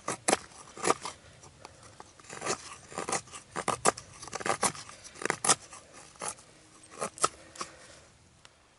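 Fixed-blade knife shaving and scraping dry wood into fine tinder curls on a bark slab, in quick, irregular strokes. The strokes stop about eight seconds in.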